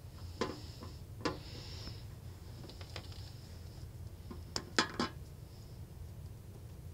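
Small metal hand tools and a circuit board clicking and clinking against a workbench, over a low steady hum. There are two clinks in the first second or so, then a quick run of three louder ones a little past the middle.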